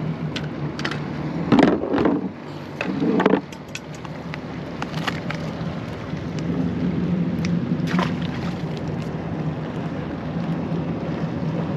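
Jet ski engine running steadily out on the water, a continuous low hum. Two loud, short noisy bursts come about one and a half and three seconds in.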